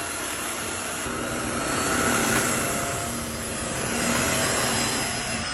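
Tineco wet-dry vacuum cleaner running steadily, a motor whine over a rush of air, growing a little louder twice.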